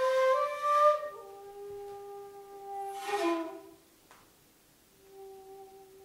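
Contemporary chamber music on a wind instrument: long held notes with breathy air noise swelling through them. It thins out and falls almost quiet about four seconds in, then a soft held note returns near the end.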